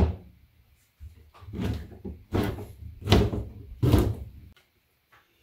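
Kitchen knife chopping oyster mushrooms on a plastic cutting board. There is a sharp knock at the start, then four heavier chops a little under a second apart, stopping about four and a half seconds in.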